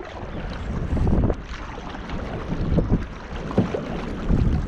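Kayak being paddled across the water: uneven paddle strokes and splashes, with gusts of wind buffeting the microphone in low rumbling swells.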